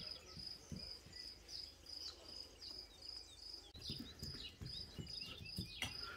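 Faint, steady high-pitched chirping of an insect, repeating about three times a second, with a few scattered short chirps over it. A few soft knocks come from hands pressing dough around the lid of a clay pot.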